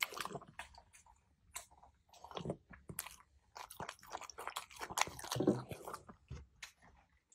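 A small dog eating from a bowl close to the microphone: wet chewing and crunching in irregular bursts, busiest about two and a half seconds in and again around five seconds in.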